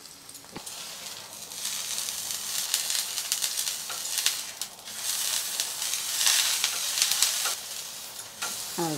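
A slab of tofu sizzling and crackling as it shallow-fries on a hot flat tawa. The sizzle is faint at first and grows louder after about a second and a half.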